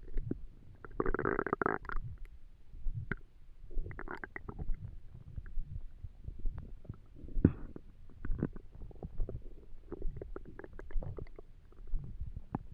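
Empty human stomach rumbling and gurgling with hunger. There is a long gurgle about a second in, another around four seconds, and small pops and bubbling throughout, over soft regular thumps about once a second.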